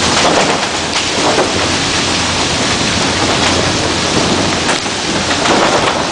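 Loud, steady rushing noise from a vehicle travelling along a wet road, over a low steady drone.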